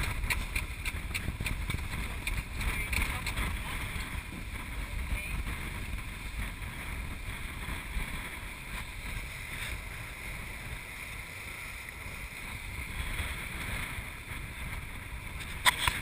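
Wind buffeting the microphone and water rushing past the hulls of an EDEL 35 sailing catamaran moving fast in gusty wind, with scattered clicks and a sharp knock near the end.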